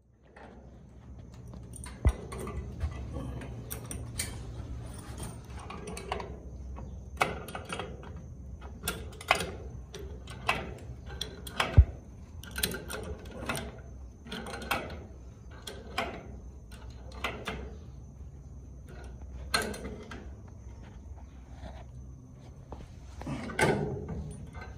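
Hammer blows and metal knocks as a J-hook for a ceiling fan is nailed to a wooden roof beam. The blows come irregularly, singly and in short runs, two of them much louder, over a faint steady hum.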